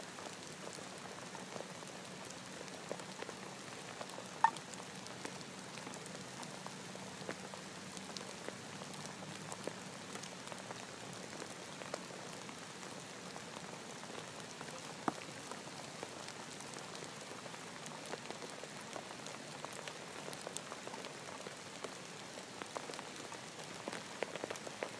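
Rain falling steadily: a constant hiss with many scattered drops ticking, one sharper drop about four and a half seconds in.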